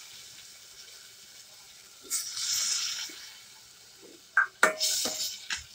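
Water splashed into frying masala in a steel pot hisses for about a second, about two seconds in. Near the end a steel spoon scrapes and clacks against the pot as the paste is stirred. The paste is being fried with splashes of water because little oil was used.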